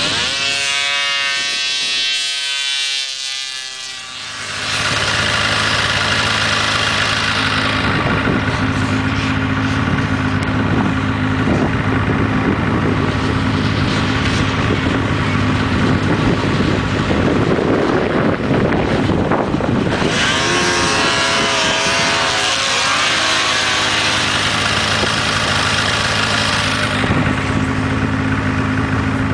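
Snowmobile engines running: one sled's engine climbs in pitch as it accelerates over the first few seconds, then several sleds idle steadily, and another engine climbs in pitch a little past the middle.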